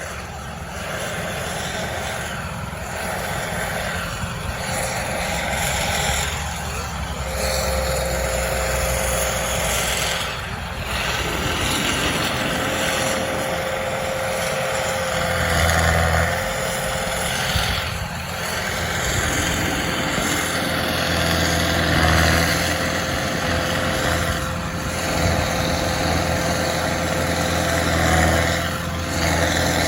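Engine of heavy landscaping machinery running, swelling in level several times, with a steady whine joining in after several seconds.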